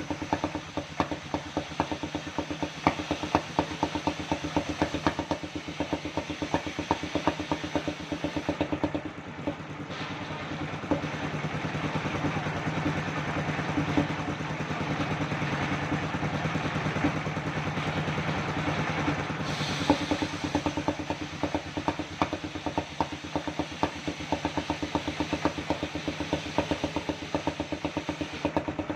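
The engine of a circular sawmill running steadily, with a rapid, even knocking beat.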